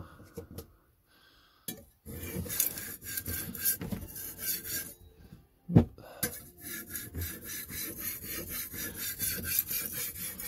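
Kitchen knife blade stroked back and forth on a wet sharpening stone: a grinding scrape in quick, even strokes, starting about two seconds in, with a short break and a single knock a little past the middle. The grinding shows the stone is cutting and not glazed.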